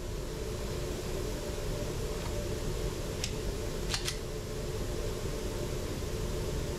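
Steady hum of an indoor shooting range's ventilation, with two light clicks about three and four seconds in as the pistol is picked up and handled. No shots are fired.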